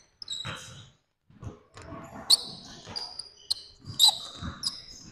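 Basketball dribbled on a hardwood gym floor in irregular thumps, with sneakers squeaking sharply on the court as the players cut and shift.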